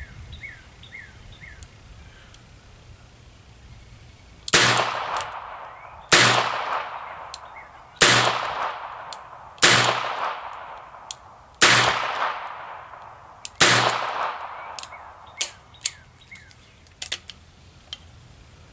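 Six shots from a .22 LR revolver, fired one at a time roughly every one and a half to two seconds, each ringing out and fading away slowly. A few light clicks follow the last shot.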